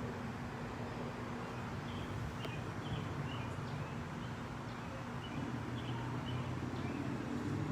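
Steady low background rumble, with a scatter of short, faint, high chirps through the middle.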